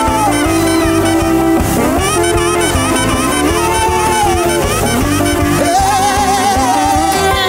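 Gospel praise music: a lead voice sings a melody that glides between held notes with vibrato, over a full, steady band accompaniment.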